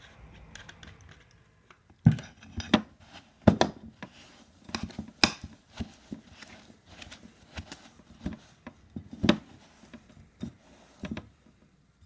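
A utensil knocking and scraping against a mixing bowl as cold, hard butter and sugar are beaten by hand: irregular sharp clacks every half second to second over a light scraping.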